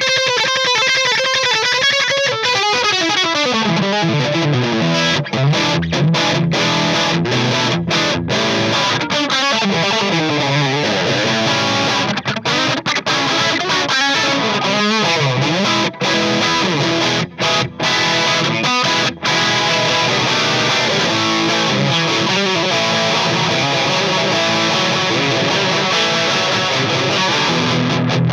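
Electric guitar played through a Joyo Time Magic delay and a Joyo Future Chorus pedal into an Orange Micro Terror amp, continuous effected playing with a few brief gaps in the second half.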